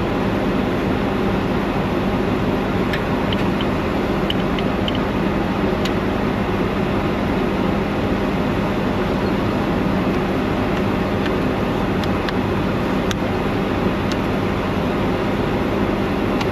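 Steady mechanical drone with a constant low hum, and a few light metallic clicks of hand tools.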